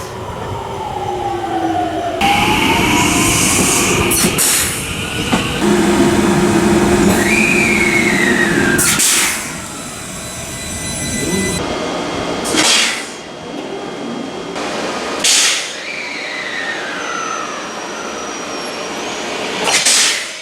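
Electric trains' air compressors blowing down their drain valves: about five short, sharp blasts of air ('shupan!'), each one moisture being expelled from the compressed-air system. Between the blasts there are the trains' running noise and a whine that rises and falls in pitch.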